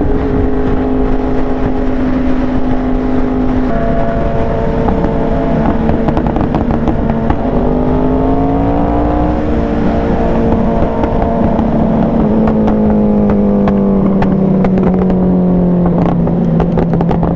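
Yamaha R1's inline-four engine running at a steady cruise, heard from the rider's seat with wind rushing past. The engine note rises about eight seconds in and sinks again a few seconds later.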